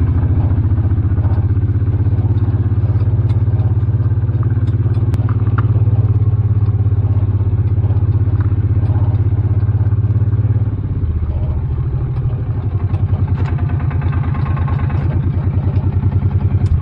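Small vehicle engine running steadily while driving, heard close up. Its note and level drop a little about eleven seconds in.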